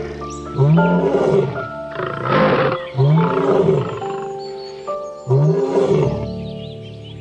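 A large animal giving four loud calls about two seconds apart, each rising then falling in pitch, over background music with steady held notes.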